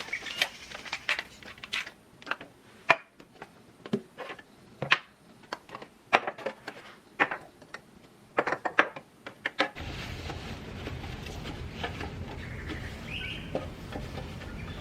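Food containers and kitchen items being handled and set down, an irregular run of sharp clicks, taps and knocks. About ten seconds in this gives way abruptly to a steady low hiss and hum with a few faint ticks.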